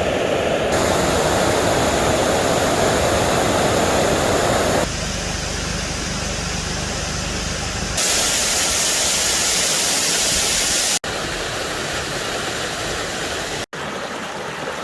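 Waterfalls rushing in a steady roar of falling water. The sound changes abruptly several times as one fall gives way to another, with two brief dropouts near the end.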